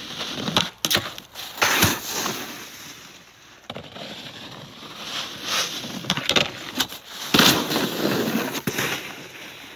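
Snowboards scraping and carving over hard snow, with several sharp knocks and clatters in between. The loudest, longest scrape comes near the end, as a rider slides low with both hands dragging in the snow.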